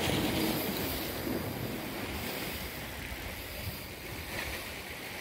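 Sea water washing and lapping against the rocks below, with wind blowing on the microphone.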